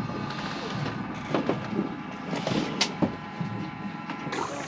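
1967 de Havilland Beaver floatplane's Pratt & Whitney R-985 radial engine idling steadily. Occasional knocks and one sharp click come from the mooring line and boat hook being handled on the float. The sound changes abruptly near the end.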